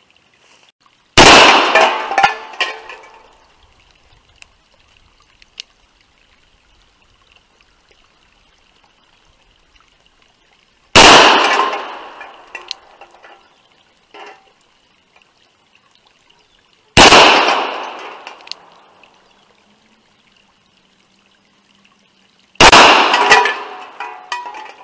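Four revolver shots from a Taurus Judge firing .45 Long Colt. The first comes about a second in, then the next three follow roughly ten, six and six seconds apart. Each sharp report trails off in an echo lasting a second or two.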